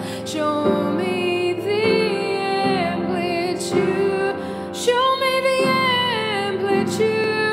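A woman singing a song, holding long notes that bend in pitch, with instrumental accompaniment beneath.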